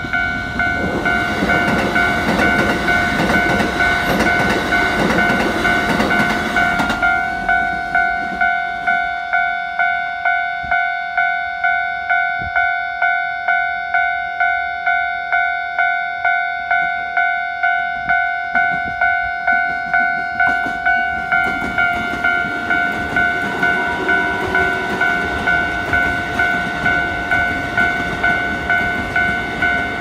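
Japanese level-crossing warning bell ringing in a steady, repeating ding-ding throughout. For the first several seconds a Keikyu commuter train runs past with wheel and rail-joint noise. Near the end the rumble of a second train builds as it comes through the crossing.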